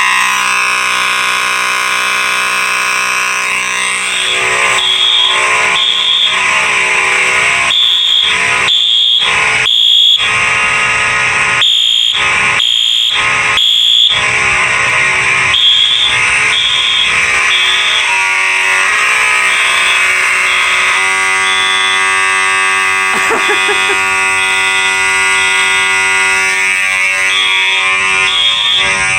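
Two fire alarm horns sounding at once: a Faraday 6226HS electromechanical horn's loud, angry-sounding buzz, with a Wheelock AS horn set to high volume and code 3 beeping over it in groups of three pulses and a pause.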